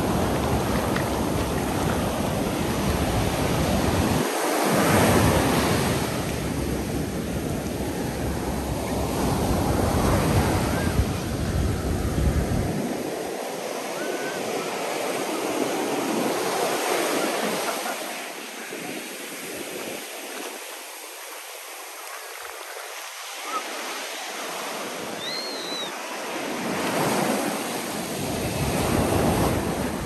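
Ocean surf breaking along a sandy beach, the wash swelling and ebbing as each wave comes in. Wind rumbles on the microphone for roughly the first dozen seconds, then stops.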